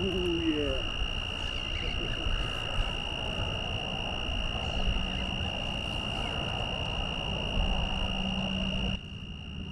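A steady, high-pitched chirring of night insects, over low rumbling noise on the microphone. A faint low hum joins about halfway, and the rumbling drops off suddenly near the end.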